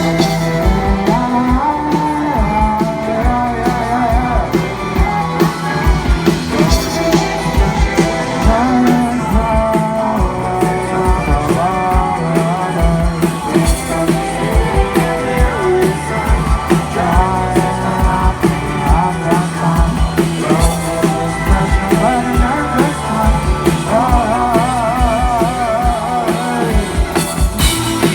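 Rock band playing live, with drums keeping a steady beat under guitar and bass, and a voice humming the melody instead of singing the words. Near the end the voice holds a note with a wide vibrato.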